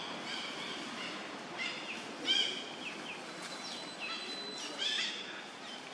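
Short, high-pitched animal calls, several falling in pitch, come in a loose series over a steady forest background hiss; the loudest is a little over two seconds in.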